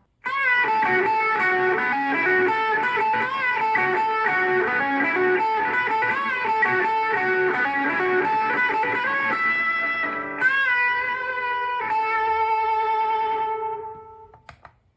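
Electric guitar played through a Zoom G1X Four multi-effects pedal preset patch: a lead phrase with bent and wavering notes, then two long sustained notes that fade away near the end.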